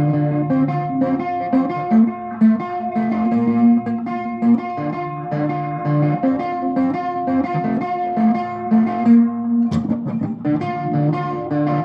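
Guitar playing an instrumental song intro: a repeating pattern of picked notes, with a short break about ten seconds in.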